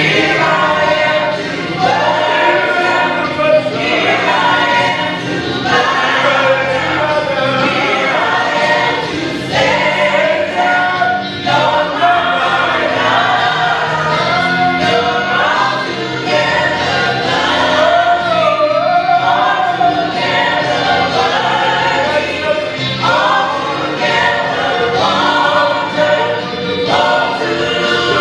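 Gospel choir singing a worship song over sustained instrumental accompaniment.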